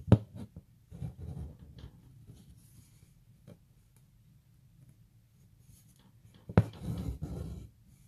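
Embroidery needle and floss worked through taut hooped fabric in chain stitch: a sharp tap as the needle pierces the cloth, then a scratchy rasp as the thread draws through. This happens at the start and again near the end, with faint thread rustles between.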